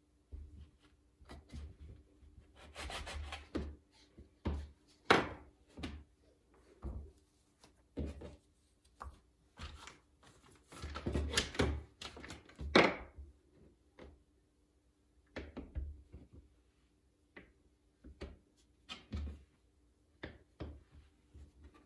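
Irregular knocks, taps and rubbing as tools and clay are handled on a work table during pottery hand-building, with a few longer scraping strokes, over a faint steady hum.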